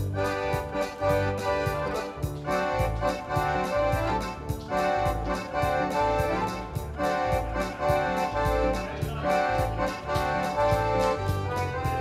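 Accordion music: held chords over a pulsing bass with a steady beat.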